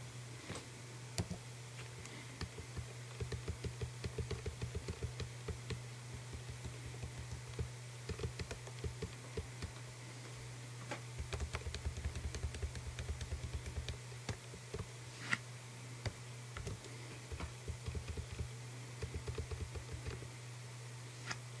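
Computer keyboard being typed on: irregular runs of quick key clicks with short pauses, a few single louder clacks, over a steady low hum.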